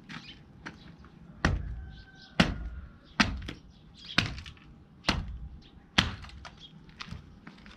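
A long-handled tool striking hard ground again and again: six heavy thuds about a second apart, with lighter knocks in between.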